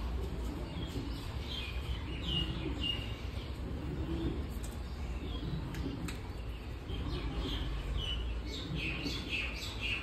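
Samsung 8 kg top-load fully automatic washing machine running its wash cycle, a steady low rumble of the motor and drum, with birds chirping over it, more often near the end.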